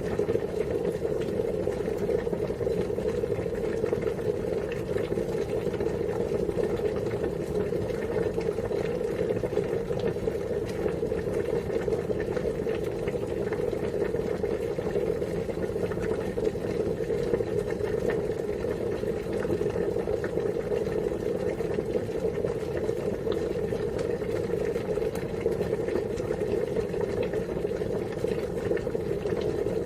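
Water boiling steadily: a constant, dense bubbling that does not change.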